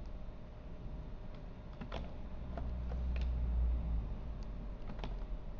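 Scattered computer keyboard and mouse clicks, a handful of single keystrokes at irregular intervals, over a steady low hum.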